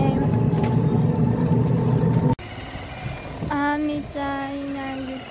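Riding in a three-wheeled rickshaw: loud road rumble with a steady thin whine. It cuts off suddenly about two seconds in, giving way to people's voices.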